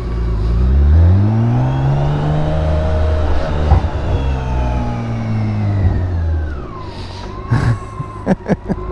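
BMW K1600B's inline six-cylinder engine pulling under throttle: its pitch climbs over the first two seconds, holds, then falls away about six seconds in as the throttle closes, with a faint high whine rising and falling along with it. A few sharp knocks come near the end.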